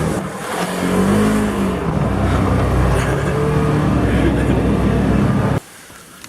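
Car engine running, its pitch rising and falling as it is revved. It cuts off suddenly shortly before the end.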